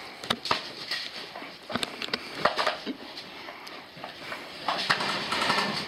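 Irregular sharp clicks and knocks over rustling, the sound of players and their gear moving, with the rustling swelling near the end.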